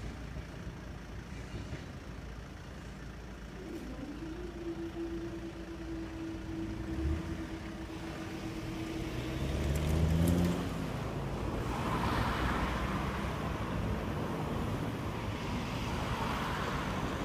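Level-crossing barriers lifting with a steady hum, then cars driving away over the crossing. The loudest moment is an engine passing close about ten seconds in, followed by steady tyre noise on the road.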